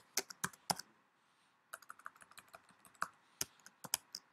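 Computer keyboard keystrokes: a quick run of key clicks, a pause of under a second, then steady typing again.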